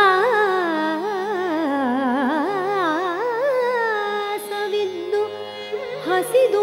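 A female Carnatic vocalist singing a long melismatic phrase thick with quick wavering ornaments (gamakas), sweeping down in pitch and climbing back up, then settling on a held note near the end, over a low steady drone.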